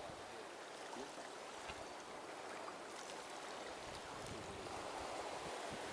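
Small waves washing steadily against an estuary shore.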